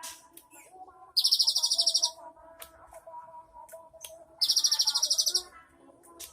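Cinereous tit (gelatik batu) singing: two bursts of a very fast, evenly pulsed high trill, each just under a second long, with softer chirps and calls between them.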